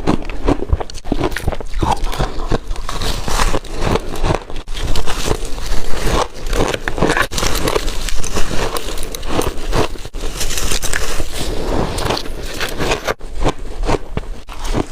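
Chunks of refrozen shaved ice being bitten and chewed: a continuous run of loud, crackling crunches.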